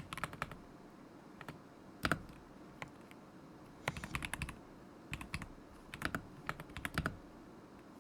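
Typing on a KZZI K75 Pro mechanical keyboard with Moment linear switches: quick runs of key clacks in irregular bursts with short pauses between, and one heavier stroke about two seconds in.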